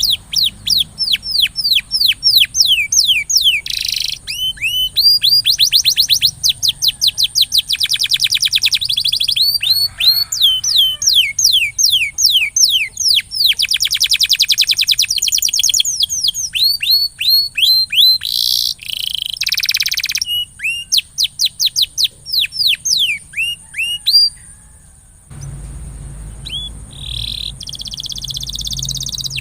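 Domestic canary singing a long, fast song of rapid trills made of repeated down-sweeping notes, with short breaks between phrases. A low hum joins near the end.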